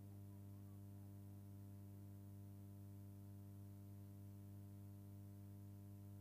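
Near silence with a faint, steady mains hum.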